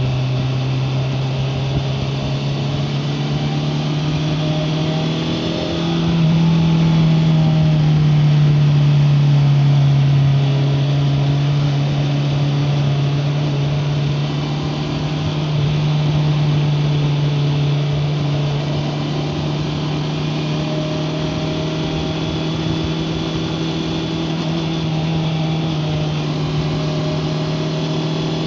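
Honda CBR650R's inline-four engine running on the move at steady revs, with road and wind noise; the engine note rises and gets louder about six seconds in as the bike accelerates, then settles back to a steady cruise.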